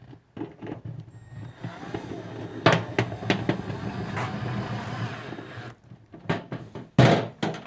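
Power drill running for about four seconds, driving a screw into the galvanized steel can, with a few sharp clicks as it bites, followed by a couple of loud knocks near the end.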